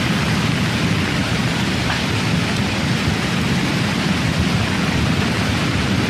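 Loud, steady rush of water with a deep rumble underneath and no separate events standing out.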